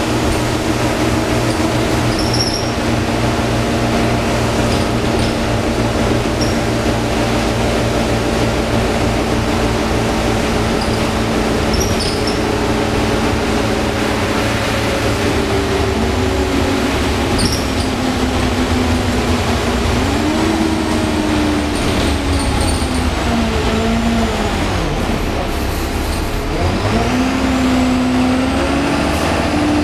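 Cummins ISBe diesel engine and Allison automatic gearbox of an Optare Solo M950 bus, heard from inside the saloon. It runs at a steady drone for the first half, then the pitch rises, holds and falls about halfway through and again near the end as the bus pulls away and eases off.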